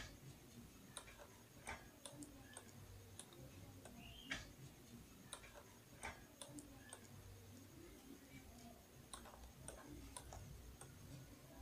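Near silence with faint, irregularly spaced clicks of a computer mouse and keys.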